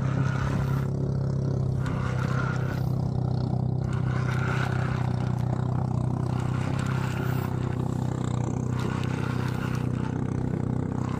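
Small fishing boat's engine running steadily: an even, low hum with no change in pace.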